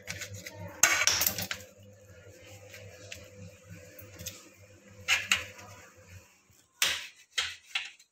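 Kitchen knife cutting through a rolled roti and knocking against a metal serving tray: a scrape about a second in, then a few sharp clicks and knocks around the middle and near the end, over a low steady hum.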